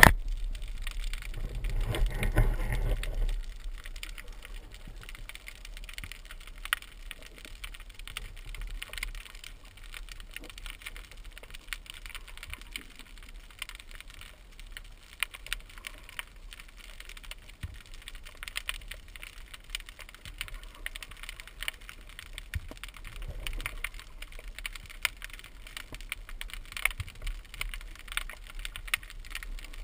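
Underwater ambience over a rocky reef: a steady crackle of many small, irregular clicks. A louder low rushing noise comes in about a second and a half in and fades after a couple of seconds.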